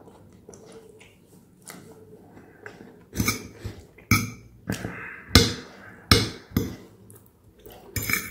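Close-miked eating of soft boiled vegetables: quiet mouth and chewing sounds, then, from about three seconds in, a metal fork clinking and scraping against a plate in about seven sharp strikes.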